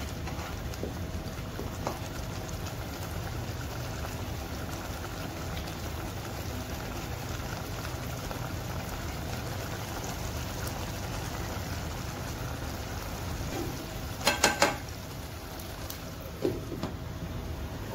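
Squid gravy bubbling steadily at a boil in a pot over a gas flame. A brief clatter comes about fourteen seconds in, and a single knock follows a couple of seconds later as a glass lid goes on the pot.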